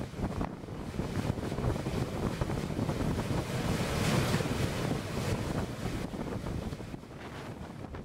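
Scoop wheel of a wind-driven polder drainage mill (wipmolen) turning fast, its paddles churning and splashing water through the wheel race, with wind buffeting the microphone.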